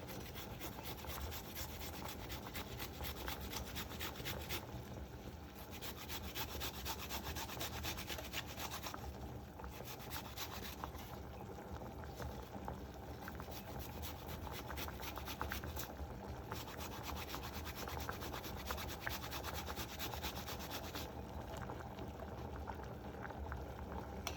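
Fresh ginger root scraped back and forth on a hand grater: a long run of quick rasping strokes that eases off briefly a few times.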